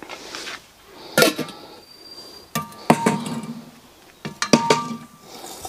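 Brass charcoal hot pot's metal lid and ring handles clinking and clanging: a strike about a second in, then two pairs of ringing clanks.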